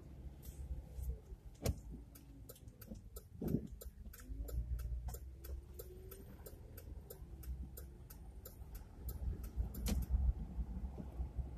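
Car turn-signal indicator ticking evenly, about four ticks a second, over the low rumble of the car, and stopping near the end.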